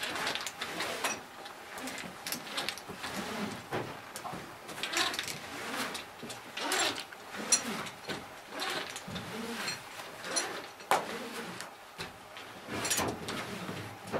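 Caver climbing a rope on a crawl chest ascender and hand ascender: irregular scraping and rustling of suit and gear against rope and rock, with sharp metal clinks from the hardware, the sharpest about seven and a half seconds in.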